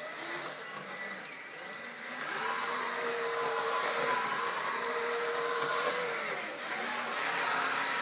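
Kyosho Blizzard RC snowcat's electric motor and track drive whining as it runs through snow on an 11.1-volt LiPo battery. The whine rises about two seconds in, holds steady, eases off around six seconds and picks up again near the end, over a hiss of tracks churning snow.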